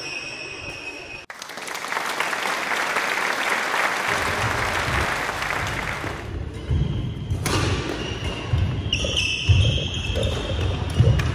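Badminton doubles rally on a wooden sports-hall floor: sharp racket hits on the shuttlecock, trainers squeaking and footfalls thudding as the players move. These sounds come in the second half, after several seconds of a steady rushing noise.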